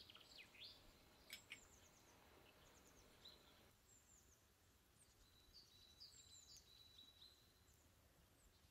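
Faint birds chirping: scattered short chirps and quick downward-sweeping calls, with a longer held note partway through, over otherwise near silence.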